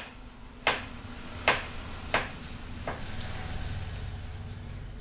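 A series of sharp knocks, about one every 0.7 seconds, stopping after about three seconds, over a low steady hum.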